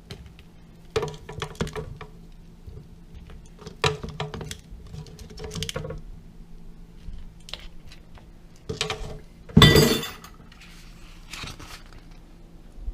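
Dishes and utensils clinking and knocking as cooked food is served onto a plate, in short scattered taps with one louder clatter about ten seconds in.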